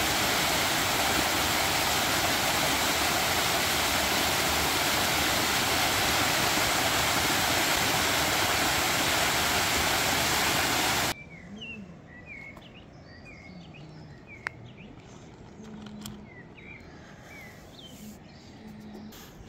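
Natural spring water cascading down a rock face in a loud, steady rush. It cuts off about eleven seconds in, leaving quiet outdoor sound with faint bird chirps.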